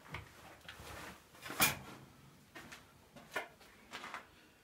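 Scattered knocks and scuffs of someone moving among debris, the loudest a sharp knock about a second and a half in.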